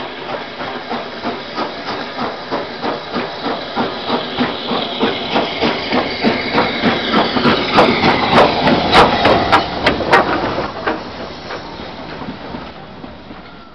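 Steam locomotive passing at low speed, its exhaust chuffing about three times a second with a steady hiss of steam, growing louder as it approaches. A run of sharp clicks comes as it passes closest, then the sound fades to a smoother rumble as the coaches roll by.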